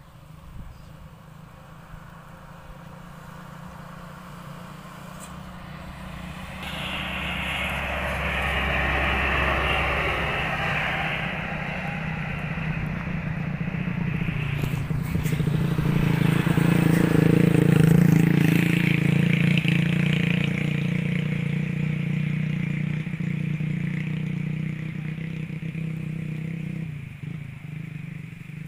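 Mitsubishi Canter dump truck's diesel engine pulling hard as it drives past, getting louder to a peak a little past halfway, then fading near the end.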